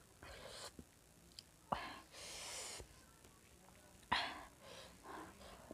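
A person eating by hand close to the microphone: short breathy exhales and sniffs between bites, with a few sharp clicks, the loudest about four seconds in.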